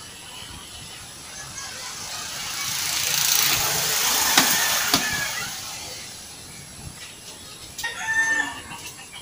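A load tipped out of a plastic jerry can: a hiss that swells and fades over about three seconds, with two sharp knocks in the middle. A rooster crows briefly near the end.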